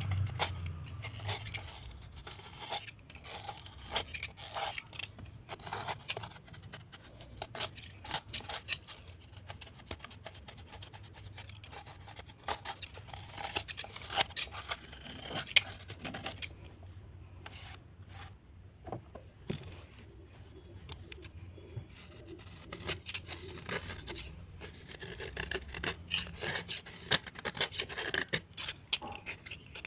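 Irregular crunching, scraping and crackling of wet, earthy material being rubbed and broken by hand, a dense run of sharp little cracks without a steady rhythm.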